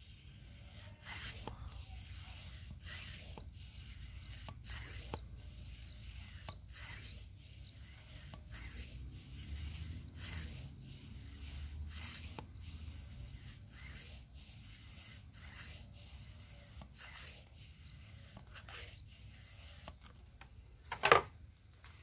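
Irregular rubbing, scraping and light clicking close to the microphone over a low rumble, the sound of a hand-held phone being handled and moved around. There is one loud, sharp knock about a second before the end.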